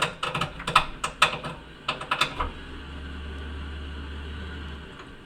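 Navien water heater popping rapidly, a quick run of sharp pops while its combustion blower runs slow; the popping comes whenever the blower is not running hard. About two and a half seconds in the pops stop and a steady low hum carries on for a couple of seconds.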